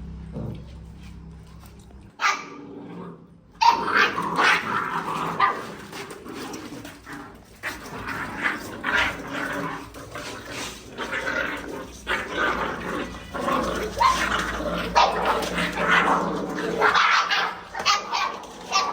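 Puppies yapping and growling in rapid, overlapping calls: a short yelp about two seconds in, then an unbroken run of barks and growls from about three and a half seconds on.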